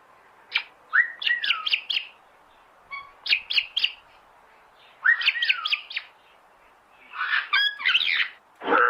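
Bird calls: four short bursts of quick chirps and downward-sliding whistles, separated by pauses of about a second. Right at the end a louder, drawn-out animal call begins.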